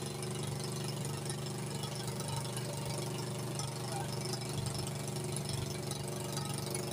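Engine of a homemade scrap-metal helicopter running steadily at a constant pitch, spinning its rotor on the ground.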